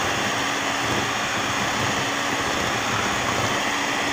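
Electric hand mixer running steadily, its beaters whisking sugar and eggs in a glass bowl, beating them until pale and thick. The motor gives an even hum.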